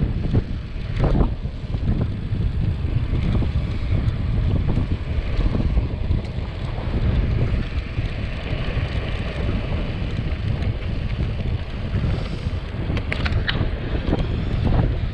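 Heavy wind buffeting the microphone on a bicycle descending at about 30 km/h, with road noise from the tyres underneath. A few short, sharp rattles cut through, about a second in and near the end.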